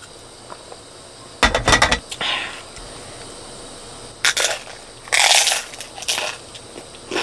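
A knock and clatter of tableware about a second and a half in, then crunchy bites into a crisp pan-fried flat dumpling topped with spicy squid salad, several short crackly crunches in the second half.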